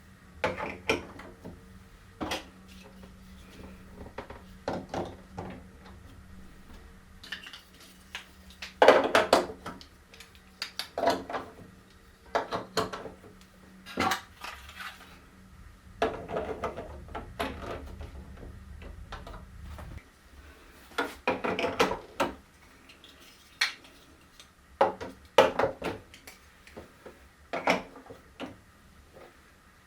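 Hard plastic marble run pieces clacking and knocking together in irregular sharp clicks, some loud. A low steady hum runs underneath and stops about two-thirds of the way through.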